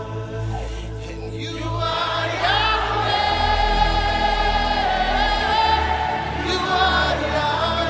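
Gospel choir singing long held notes over a steady instrumental backing, the voices coming in about two seconds in.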